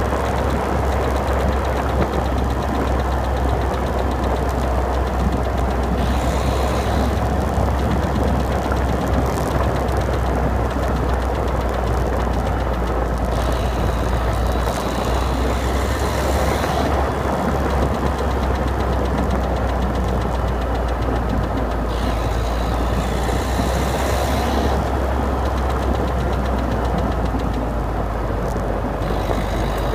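Citroën DS3 110 HDi's 1.6-litre diesel engine running steadily, with the clicking noise the owner is trying to track down.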